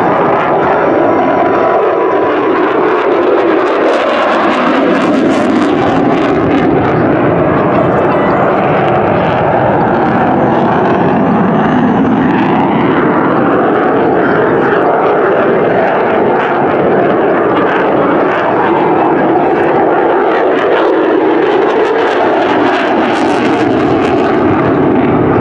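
Jet engine of an F-16 Fighting Falcon flying an airshow display overhead: a loud, steady jet roar that rises and falls slightly as the fighter banks and turns.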